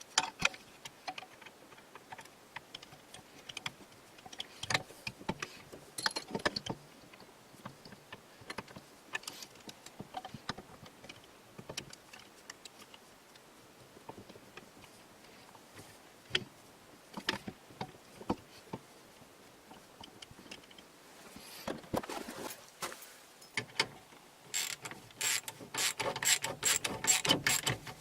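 Metal clicks and clinks of hand tools and a steering wheel puller's bolts being threaded and fitted, scattered at first, then a quick run of rapid clicking near the end.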